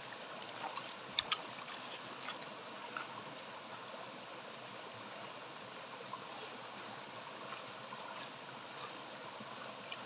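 Shallow stream running and trickling over stones, a steady watery wash. A few light clicks and splashes come from charred bamboo shoots being peeled in the water, the sharpest a pair about a second in.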